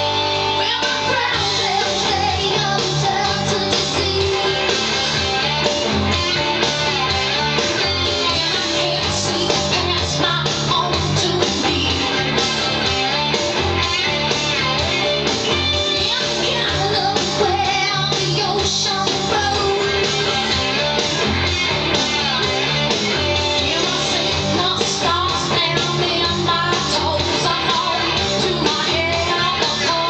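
Background music: a guitar-driven song with singing.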